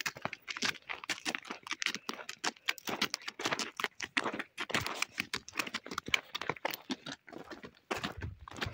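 A loaded donkey's hooves clip-clopping on a stony track as it walks, with rustling from the woven sacks on its back. A low rumble comes in near the end.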